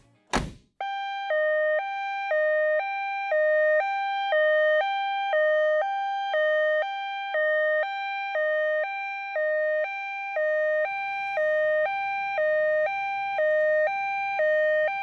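Electronic two-tone siren of a toy rescue truck, switching back and forth between a high and a low note about once every half second. A single sharp knock comes just before it starts.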